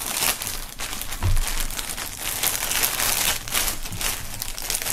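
Clear plastic wrapping crinkling and rustling as it is slit with a knife and pulled off a folded T-shirt, with a soft knock about a second in.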